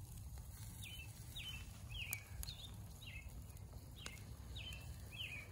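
A bird calling a short, high, downward chirp over and over, nearly twice a second, over a low outdoor rumble.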